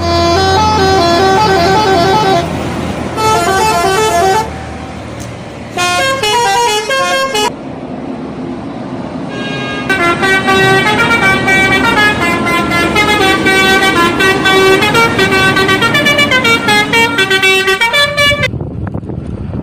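Indonesian bus telolet horn, a set of air horns switched in sequence, playing melodies note by note: three short tunes in the first eight seconds, then one long tune of about eight seconds. The bus engine runs underneath.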